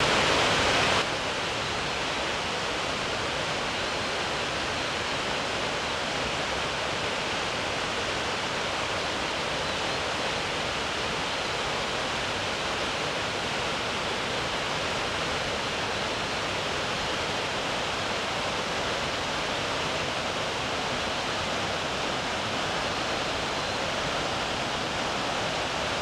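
Steady rush of falling and running water from the Shiraito Falls, a broad curtain of many thin cascades, and the rocky stream below; a little louder in the first second.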